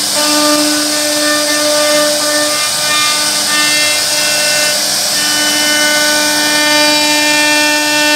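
CNC router spindle carving a wood relief: a steady high-pitched whine over the hiss of the bit cutting wood, the whine faltering for a couple of seconds midway.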